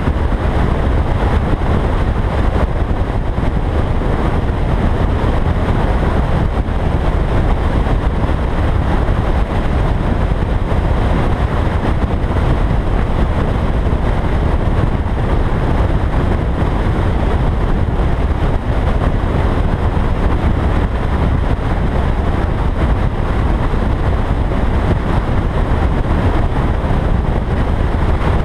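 Car driving at a steady road speed: a constant low rumble of wind buffeting and road noise, with no clear engine note or sudden sounds.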